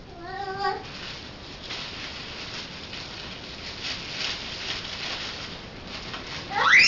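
Soft rustling and light pattering, with a brief high-pitched voice sound at the start and a loud whistle sweeping upward in pitch just before the end.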